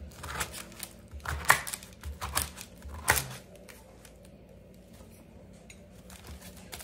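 A kitchen knife sawing through flaky croissants on paper, a run of crisp crackling crunches in the first three seconds, then much quieter cutting.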